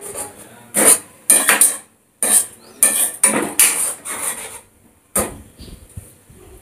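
A steel spoon stirring thick tomato masala in a frying pan, scraping against the pan in a run of quick strokes. The strokes are strongest for the first four seconds or so and then get fainter and sparser.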